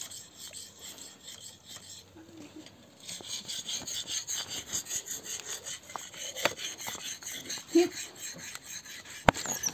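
Knife cutting through and scraping a papaya, a scratchy rasping with small knocks that gets louder about three seconds in. A sharp knock near the end.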